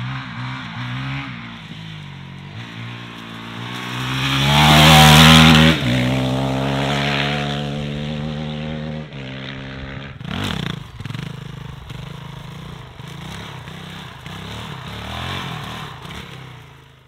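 Honda CRF450L's single-cylinder four-stroke engine revving up and down as the dirt bike is ridden, loudest and highest about four to six seconds in, then dropping back, and fading out at the end.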